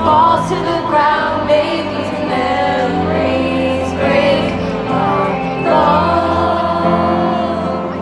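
Live stadium concert heard from the stands: a female pop singer sings a slow ballad while playing grand piano, with many voices of the crowd singing along.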